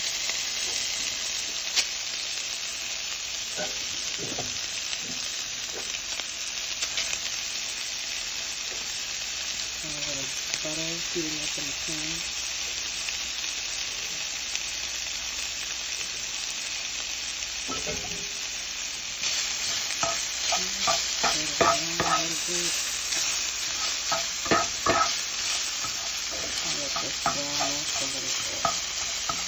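Chopped Dominican salami frying in oil in a non-stick pan, a steady sizzle. About two-thirds of the way in the sizzle gets louder and a spatula starts pushing and turning the pieces, a quick run of scrapes against the pan.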